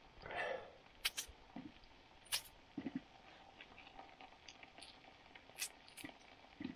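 A knife slicing through a raw potato held in the hand, with scattered sharp clicks and soft knocks as the blade cuts and the round slices drop into a metal frying pan.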